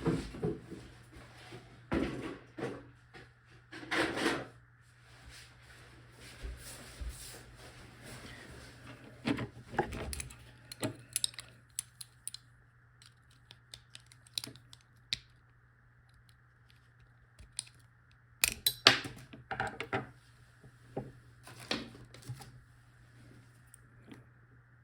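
Screwdriver prying and scraping at the metal parts of an Abloy padlock, giving scattered metallic clicks, knocks and short scrapes, with a louder cluster of knocks about two-thirds of the way in.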